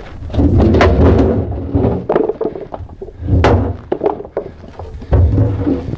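Cribbing blocks and step chocks pulled from a fire truck's compartment and dropped onto a pile of cribbing on concrete: a series of heavy thuds and clatters a second or so apart.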